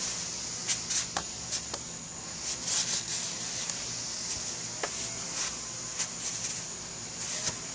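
Green shop rag rubbing and scuffing over the oil filter mounting surface on the engine block as it is wiped clean, in irregular short scrapes and clicks. A steady high hiss runs behind.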